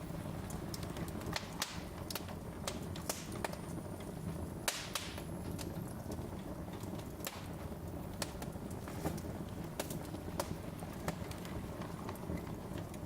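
Wood fire in a fireplace crackling: irregular sharp pops and snaps over a steady low rumble of the burning logs, with one louder pop a little before the middle.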